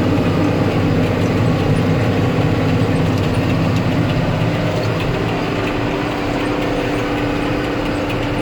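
John Deere 6930P tractor's six-cylinder diesel engine running steadily, its note and level easing slightly about five seconds in.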